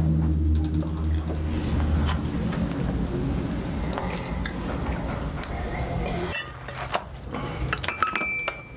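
Cutlery and dishes clinking in scattered light clicks, over a low steady drone that stops about six seconds in.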